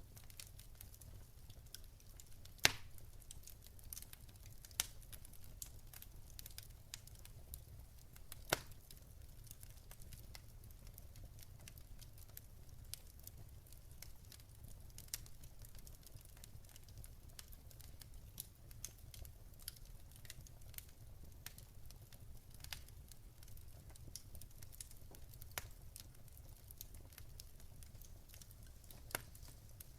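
Wood fire crackling: irregular sharp pops and ticks over a faint low rumble, with a few louder pops in the first ten seconds.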